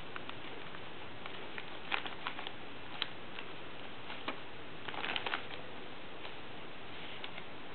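Clear plastic bag crinkling as a kitten paws and noses at it: scattered sharp crackles, with a denser burst about five seconds in, over a steady hiss.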